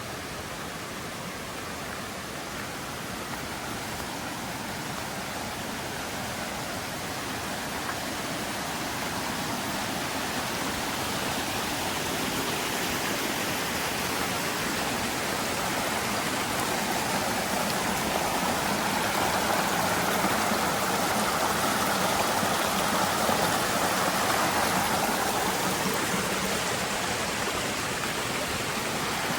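Mountain river rushing over rocks, a steady noise of flowing water that grows louder through the first two-thirds as it comes closer.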